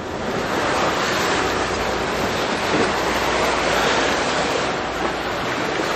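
Steady rushing noise with a low hum from a passenger ferry's engine and churning water alongside the hull, the low hum easing off about halfway through.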